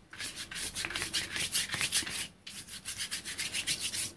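Flat bristle paintbrush scrubbing chalky acrylic paint back and forth across card in quick, scratchy strokes, with a brief pause a little over halfway through.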